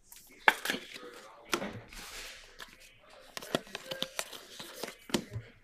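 Foil trading-card pack wrapper being torn open and crinkled by hand: a string of sharp crackles with a brief rustle in between.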